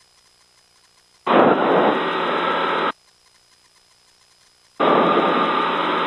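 Aircraft airband radio opening with two bursts of radio hiss, each about a second and a half long and starting and stopping abruptly, as someone keys a transmitter without speaking; silence between them.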